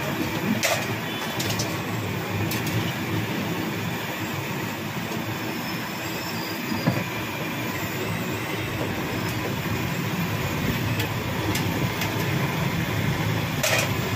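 Sabudana vadas deep-frying in a large iron kadhai of hot oil: a steady, dense sizzle, with a few light metal clicks near the start and again near the end.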